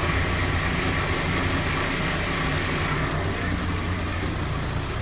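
Automated people-mover train running through its tunnel, heard from inside the car: a steady low rumble with a hiss above it. The hiss fades over the last second or two as the train slows toward the station.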